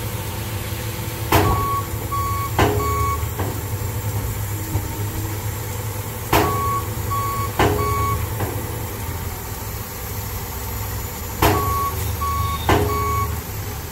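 Dump truck sound effect: a steady low engine idle under three short backup-alarm beeps and two sharp knocks, the group repeating three times about five seconds apart.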